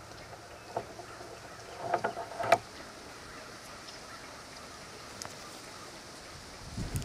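Quiet woods with faint hiss and a few short, sharp crackles of dry leaf litter and twigs: one at about a second in, and a cluster about two seconds in, the last the loudest. Near the end a low rumble of handling noise comes in as the bow is moved.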